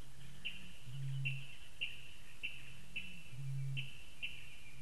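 Eurasian bittern booming in the reeds: two deep booms about two and a half seconds apart, each led in by a fainter, slightly higher note. Above it another bird repeats a short high call a little under twice a second.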